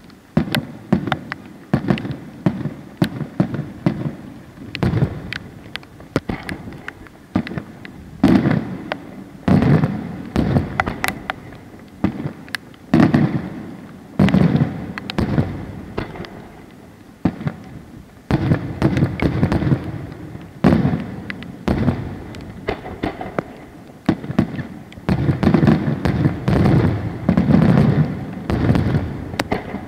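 Aerial firework shells bursting in quick succession: a dense run of sharp bangs and deep booms, swelling into heavier clusters every few seconds.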